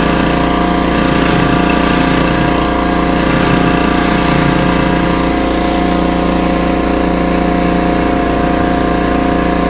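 Pressure washer running steadily under load, driving a 16.5-inch stainless steel surface cleaner whose spinning jets spray the concrete driveway. The machine tone is loud and does not change.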